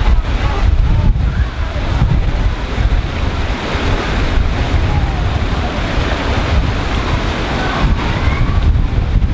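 Wind buffeting the microphone, heavy low rumble, over a steady rush of running water.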